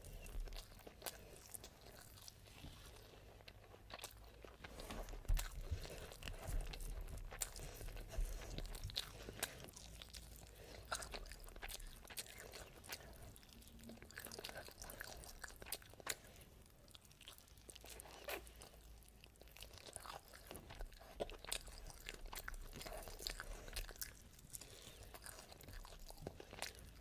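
Close-miked chewing and biting of mutton biryani eaten by hand: irregular wet mouth clicks and crackles of meat and rice being chewed.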